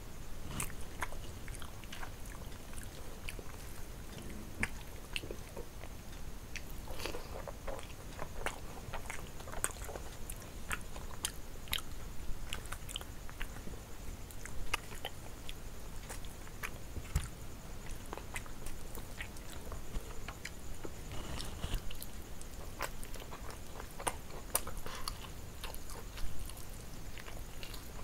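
Close-miked eating sounds: chewing and lip smacking, with irregular wet clicks throughout. Hands squish through rice and curry and pull apart a roast whole chicken.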